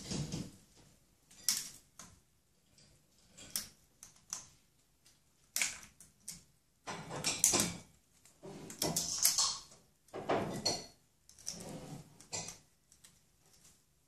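An Amazon parrot chewing and tearing at leafy branches: rustling leaves and crackling, snapping twigs in irregular bursts, busiest in the second half.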